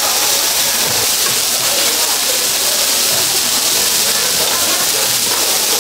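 Pork belly, kimchi and vegetables sizzling on a hot cast-iron cauldron-lid griddle, a steady hiss.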